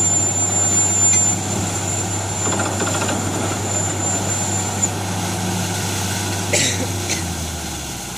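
Borewell drilling rig's engine running steadily, with a thin high whine that stops about halfway. Two short clicks come near the end, and the engine hum then drops slightly in pitch and level.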